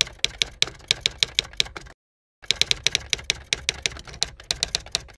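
Typing sound effect: rapid typewriter-style key clicks, several a second, breaking off for about half a second partway through.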